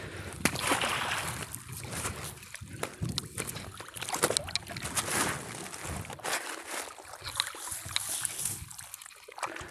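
A wet fishing net being hauled hand over hand out of the water into a small boat: water dripping and splashing off the mesh, with scattered small clicks and knocks as the net is handled.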